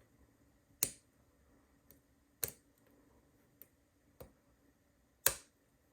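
Brinks R60 disc-detainer padlock being picked: sharp, irregularly spaced clicks as the pick turns the discs, three louder ones and a few fainter. The picker hears too many clicks, taking it as a disc not setting or oversetting.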